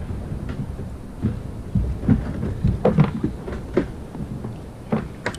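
Irregular knocks and thumps on a plastic fishing kayak as the landing net holding two lingcod and the fishing gear are handled, over a low wind rumble on the microphone.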